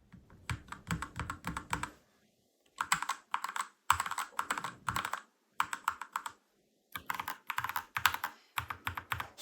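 Typing on a mechanical gaming keyboard fitted with PET keycaps: quick runs of clacking keystrokes in bursts of about a second, with short pauses between them.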